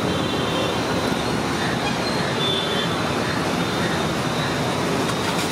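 Steady roadside traffic noise: a continuous rush and rumble of passing road vehicles.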